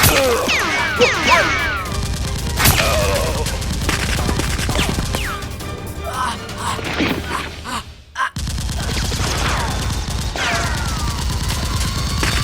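Action background music with bursts of gunfire sound effects and several falling, whistle-like sounds dubbed over a staged Nerf-gun fight. The sound drops out briefly about eight seconds in.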